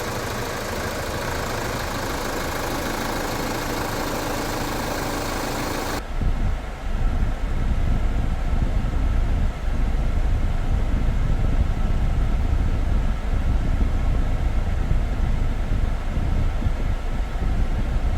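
Kia Grand Carnival running with its air conditioning on after a refrigerant recharge. For about six seconds there is a steady hiss; then it changes suddenly to a louder, uneven low rumble of the running vehicle.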